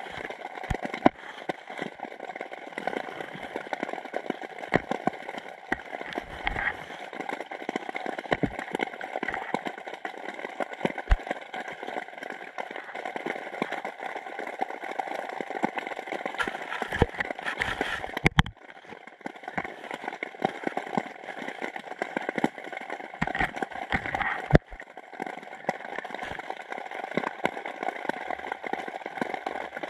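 Underwater sound picked up by a GoPro camera in its waterproof housing: a steady, muffled water hiss with irregular sharp clicks and knocks throughout.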